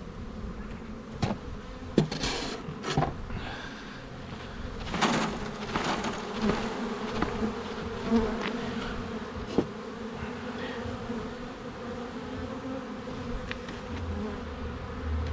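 Honeybees buzzing steadily around an open hive. In the first six seconds there are several sharp knocks and rustles, with one more knock later, as a comb frame is jarred to shake its bees off into a nucleus hive.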